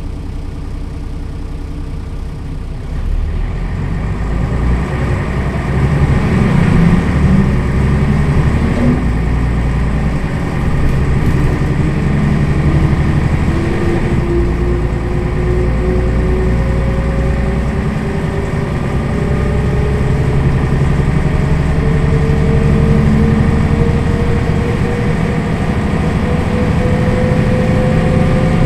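Mercedes-Benz O 405 city bus with its six-cylinder diesel engine and ZF automatic gearbox idling, then pulling away about three seconds in and accelerating, the engine rumble growing louder under a slowly rising drivetrain whine.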